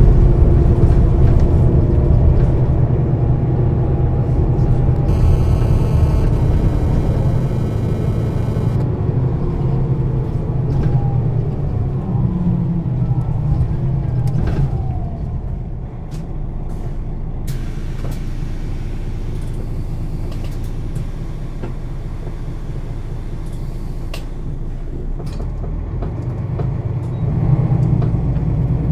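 Setra S 415 NF city bus heard from inside the passenger cabin: its diesel engine running with a steady low rumble. The engine drops to a quieter level about halfway through and rises again near the end. A brief high electronic tone sounds about five seconds in, and a few sharp clicks follow later.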